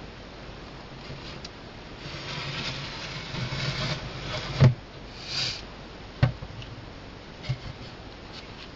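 Rustling for a couple of seconds, ending in a sharp knock, then a short hissy rustle and two lighter knocks.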